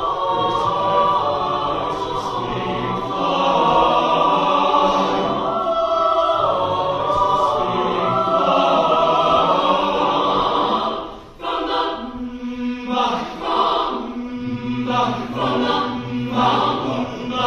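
Mixed choir singing sustained chords. About eleven seconds in the sound breaks off briefly, then returns as short, rhythmic repeated notes over a held low note.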